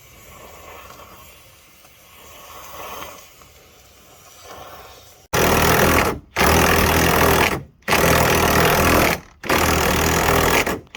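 A power tool is run in four bursts of a second or so each, with short pauses between them, starting abruptly about five seconds in. Before that there is only faint background noise.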